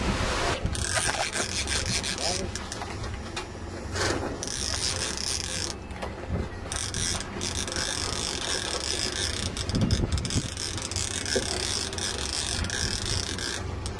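Fishing reel ratcheting, its clicker or drag running in spells that stop and start several times, over wind and sea noise.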